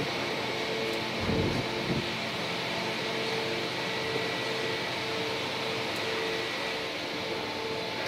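Steady mechanical hum and whir of a plastic injection moulding machine and its take-off conveyor, with a tone that keeps cutting in and out. A dull low thump comes about a second and a half in.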